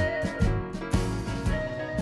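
Background music with a steady drum beat and pitched instrument notes.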